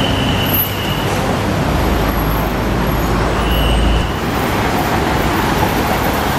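Road traffic at an airport kerbside: a steady wash of vehicle noise, with a heavier low engine rumble building from about a second and a half in and dropping away at about four seconds. A brief high steady tone sounds near the start and again about three and a half seconds in.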